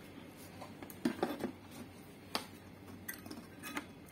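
Light clicks and knocks from hands handling a speaker cabinet and its amplifier back panel and wiring, a handful of short scattered taps, the sharpest a little past the middle, over a faint steady low hum.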